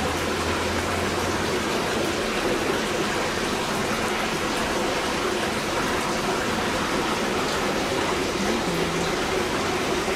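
A steady rushing noise, like running water.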